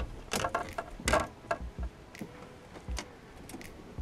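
A few irregular light clicks and knocks, the loudest in the first second and a half, from fishing gear being handled in a small boat while a fish is played on the rod.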